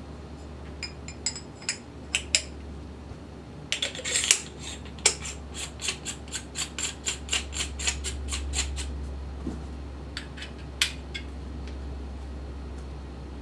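Metal parts of a Ruger Mark IV integral suppressor being handled and put back together: scattered metallic clicks and light clanks, with a run of quick, even clicks in the middle as the suppressor tube is twisted onto the pistol's upper.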